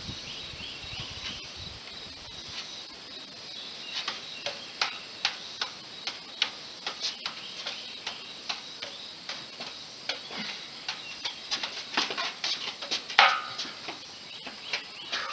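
Juggling props clicking as they are caught and thrown by hand, in irregular sharp clicks about one or two a second, starting about four seconds in. A steady high-pitched hum runs underneath.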